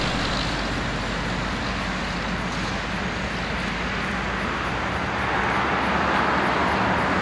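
Steady road vehicle noise: a low engine hum under a hiss of road noise, swelling somewhat from about five seconds in.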